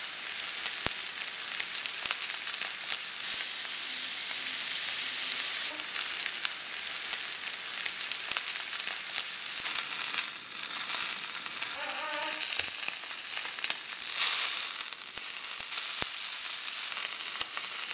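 Ribeye steak searing in oil in a hot frying pan: a steady sizzle with scattered spitting crackles, briefly louder about fourteen seconds in.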